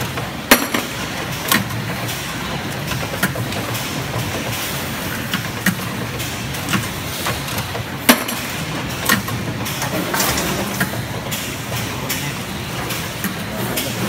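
Wire bending machine and surrounding factory machinery running: a steady mechanical din broken by sharp metallic clicks and clanks at irregular intervals, the loudest about half a second in and about eight seconds in.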